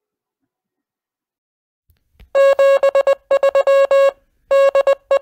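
Morse code: a single steady beeping tone keyed on and off in long and short elements, starting a little over two seconds in.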